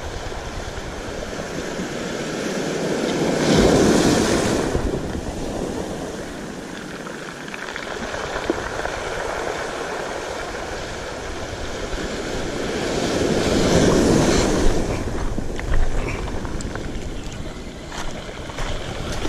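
Waves breaking and washing over a pebble beach, surging up twice, about four seconds in and again about fourteen seconds in.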